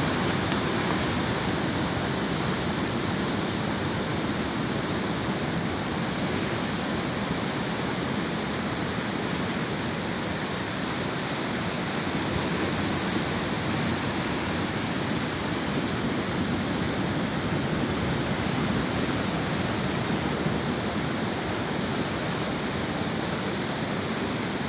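Ocean surf breaking on a beach: a continuous wash of waves with gentle swells in loudness and no distinct single crashes.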